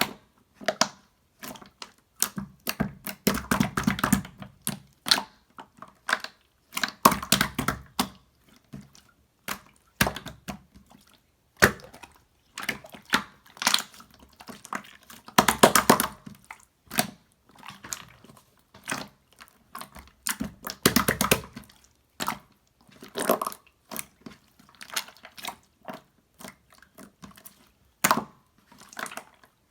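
Slime being pressed, squeezed and worked by hand, making irregular sharp sticky clicks and clusters of crackly pops.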